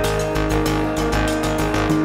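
Background music with a steady beat and held instrumental notes.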